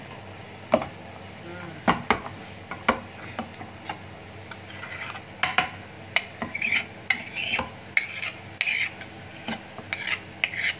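Metal ladle stirring thick cooked khichdi in a pressure cooker pot, knocking against the pot's sides and rim in sharp clinks. There is a stretch of scraping in the second half.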